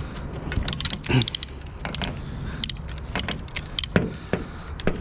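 Steel strapping band rattling and clinking as it is handled and threaded by hand, a scatter of sharp metallic clicks.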